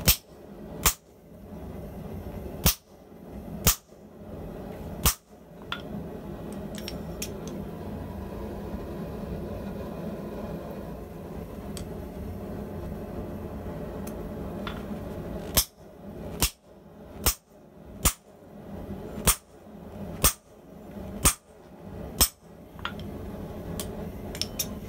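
Hand hammer striking a thin hot steel rod laid across serrated steel rack pieces on the anvil, forging a zigzag pattern into it: sharp metallic clanks, five in the first few seconds, then a pause of about ten seconds with a steady hum under it, then about eight more at roughly one a second.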